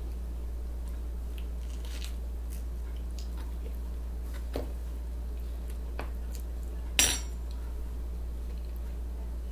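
Light clicks of a plate and utensils while eating, with one sharp clink about seven seconds in and a smaller knock a little before five seconds, over a steady low hum.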